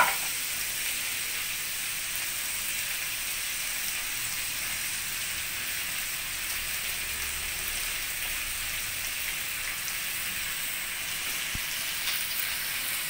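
Chopped garlic, onion and red bell pepper sizzling steadily in oil in an aluminium wok over a low gas flame.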